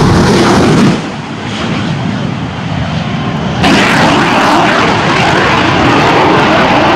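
Shock Wave jet truck's three jet engines, mixed with an aerobatic biplane's engine at full power. The noise is loud and crackling; it drops about a second in and surges back louder a little past halfway.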